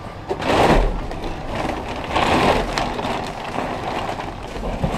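Trash rustling and crackling in a dumpster (plastic bags and crumpled paper) as someone climbs in and shifts through it. The noise comes in bursts, with a dull thump under the first one about a second in.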